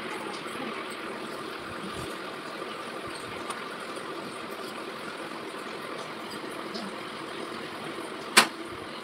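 Steady background hum and hiss in a room, with one sharp snap about eight seconds in.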